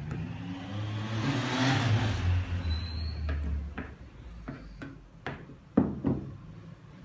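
A motor vehicle passing by, its noise with a low engine hum swelling and fading over about three seconds. Then a handful of sharp knocks and clatters from work at a kitchen counter, the loudest nearly six seconds in.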